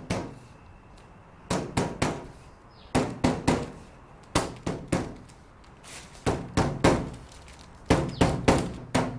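Rubber mallet gently tapping a fixing strip down onto the edge of a polycarbonate multi-wall board: short runs of three or four sharp taps, roughly a second or so apart.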